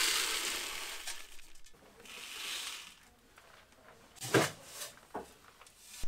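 Kitten purring so loud, close to the microphone, in two swells that fade, with a short knock about four seconds in.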